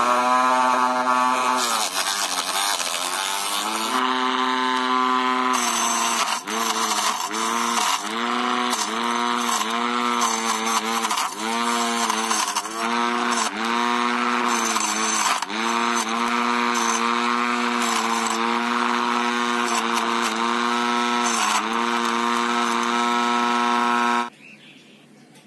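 Small DC motor of a homemade chaff cutter spinning its cutting blade with a steady high whine. The pitch sags briefly and recovers about once a second as grass loads the blade. It cuts off suddenly near the end.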